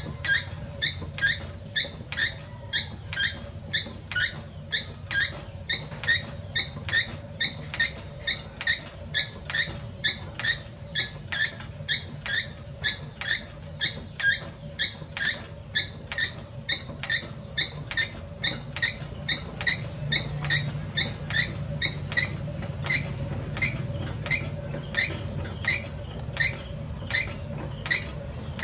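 Potter's wheel turning with a sharp, high squeak repeating evenly about twice a second, over a steady low hum.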